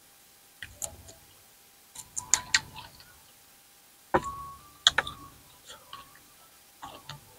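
Sharp clicks and crunches of eating raw leaves and papaya salad close to the microphone. They come a few at a time in short groups with quiet pauses between.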